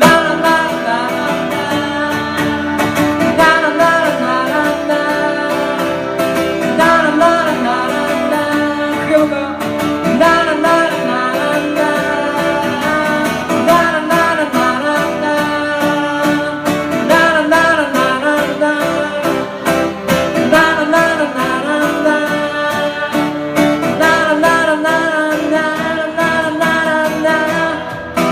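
Live song: strummed acoustic guitar with a man singing over it, playing steadily throughout.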